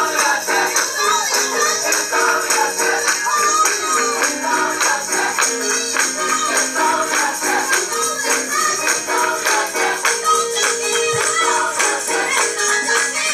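Live gospel music: a church choir singing over a steady percussion beat, with held lower notes underneath.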